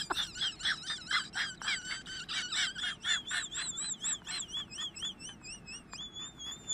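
A person whistling in quick, high, warbling chirps, about four or five a second, with the pitch wavering on each note; near the end the whistle settles into one steady held note.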